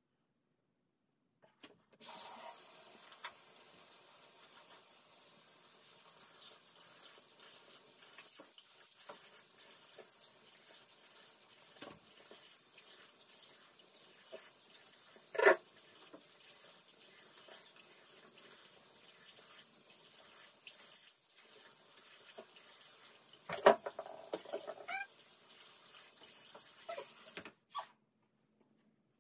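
Bathroom sink tap running, with water splashing as a face is rinsed under it. The water starts about two seconds in and stops abruptly near the end. Two sudden louder sounds break in partway through.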